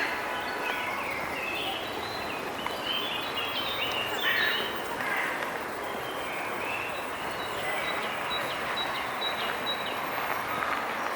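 Birds calling in a park: assorted short chirps and call notes over a steady outdoor background hiss, with one bird repeating a short high note about twice a second in the second half.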